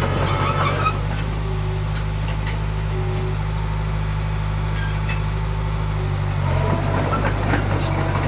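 Diesel engine of a Komatsu D21P bulldozer running steadily, with a few light clicks and short squeaks over it.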